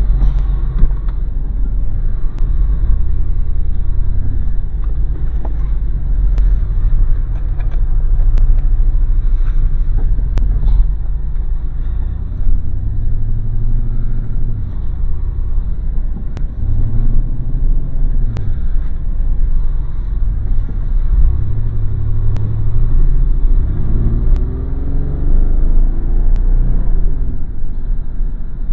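Car interior noise while driving: a continuous low engine and road rumble inside the cabin, picked up by the small built-in microphone of camera glasses.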